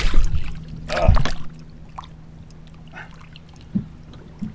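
Hooked smallmouth bass splashing at the water's surface beside the boat as it is grabbed by hand: two bursts of splashing in the first second and a half, then a faint steady hum with a few small ticks.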